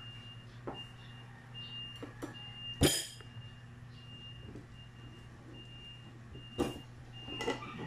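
A kitchen knife stabbed into the lid of a tin can to open it: a few sharp metallic knocks, the loudest about three seconds in, another near the end. Throughout, a short high beep repeats about once every three-quarters of a second over a steady low hum.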